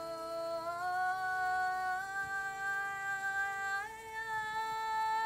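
A woman's voice singing long held notes without words, stepping up in pitch three times, over a steady lower drone tone.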